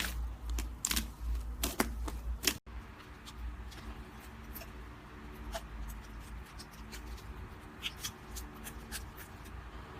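Slime being squeezed and handled by hand, with a quick run of sharp crackling clicks. An abrupt cut comes about two and a half seconds in, and after it the handling is quieter, with only occasional clicks.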